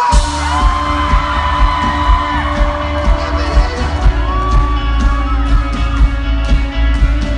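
Rock band playing live at full volume. Heavy bass and drums come in together right at the start and carry a steady beat, with long held notes over it.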